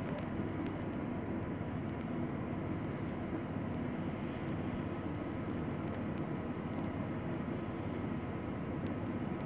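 Steady low background rumble with a faint hiss and two thin, faint steady tones; nothing starts or stops.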